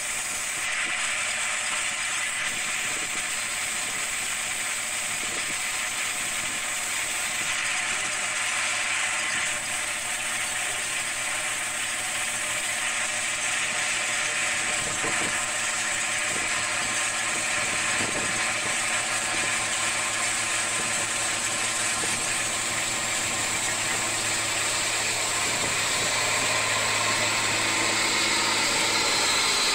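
New Holland 8080 combine harvester running while cutting wheat: a steady drone of engine and threshing machinery with a rattling mechanical clatter, growing louder over the last few seconds as the machine comes close.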